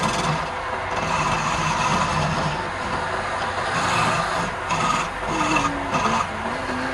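Lathe turning a wooden spindle while a hand-held turning chisel cuts and scrapes its end: a steady rasping, rubbing noise over the low hum of the running lathe.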